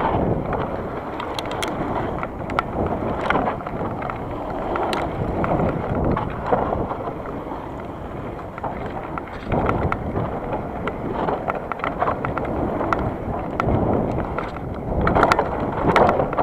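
Wind rumbling on the microphone, with scattered light clicks and crunches.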